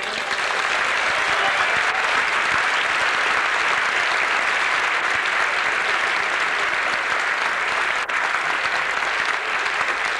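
Audience applauding steadily as the dance music stops.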